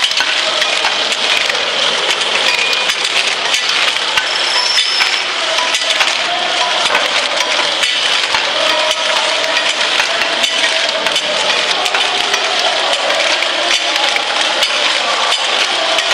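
Automatic popsicle cartoning machine running: a steady, dense clatter of rapid small clicks and clinks from its mechanisms.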